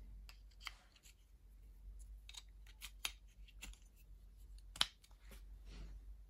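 Scattered light clicks and taps of handling a small slotted wooden box of angle readouts as the pieces are fitted into it and the box is set down, with one sharper knock about five seconds in.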